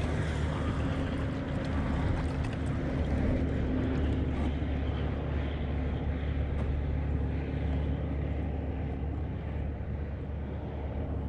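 Steady low engine drone, easing off slightly near the end.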